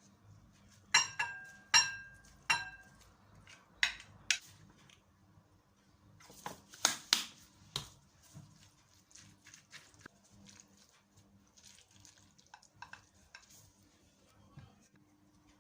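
A spoon clinking against a plate and serving dish as food is dished out. There are three ringing clinks between about one and three seconds in, sharper knocks near four seconds and a cluster around seven seconds, then lighter taps.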